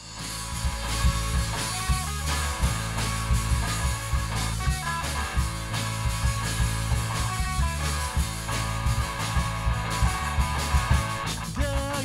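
Rock music: drum kit and electric guitar playing a steady beat, with a voice starting to sing near the end.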